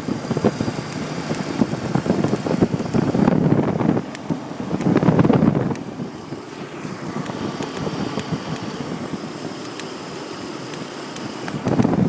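BMW E46 making a noise that the owner calls weird: a rough, uneven running sound with many short clicks. It is louder about five seconds in and quieter for most of the second half.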